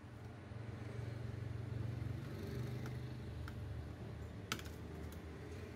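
Handling noise from a laptop motherboard and screwdriver being worked on bubble wrap: a few light clicks, the sharpest about four and a half seconds in. Under them runs a low hum that grows louder about half a second in.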